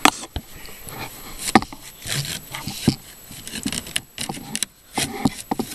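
A draft-blocking piece being slid and tucked into a chicken coop's window opening by hand: irregular knocks, taps and rubbing scrapes as it is worked into place.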